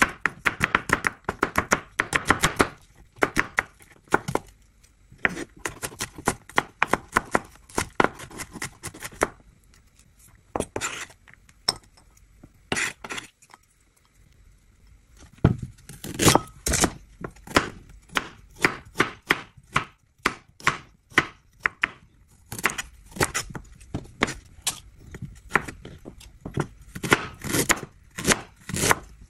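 Chef's knife slicing garlic cloves and then ginger on a bamboo cutting board: quick, repeated knocks of the blade on the board, several a second, with a short pause a little before the middle.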